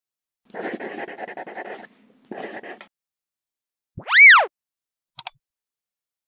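Sound effects of an animated channel intro: two short bursts of rough, crackly noise, then a brief tone that rises and falls in pitch, which is the loudest part, then a quick double click as the Subscribe button appears.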